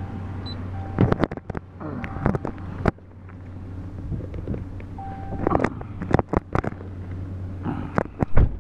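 Someone getting into a Ram pickup's cab: a run of clicks, knocks and rustles from the door and controls, with a single-pitch dashboard warning chime sounding on and off. About three seconds in the driver's door slams shut and the outside noise drops; a heavy bump comes near the end, over a steady low hum.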